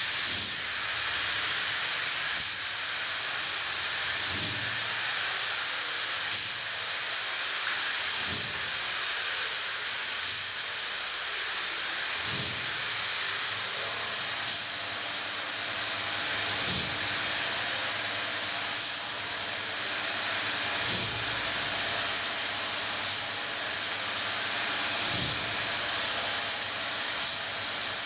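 Hose-fed paint spray gun hissing steadily as it sprays finish onto a wooden door, starting suddenly, with a soft pulse about every two seconds.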